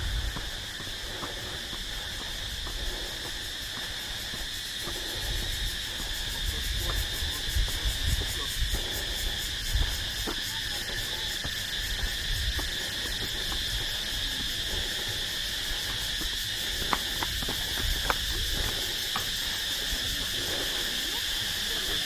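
Steady, high-pitched chorus of insects, unbroken throughout, with scattered light footsteps on a concrete path.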